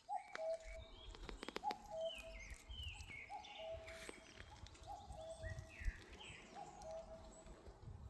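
Birds singing: one bird repeats a low two-note call, a short higher note then a longer lower one, about every second and a half, while other birds chirp higher up.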